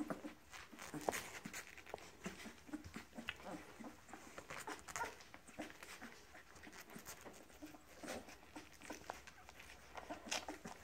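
Young puppies whimpering and squeaking in short, quiet bursts while squirming against each other, with soft rustling of the bedding.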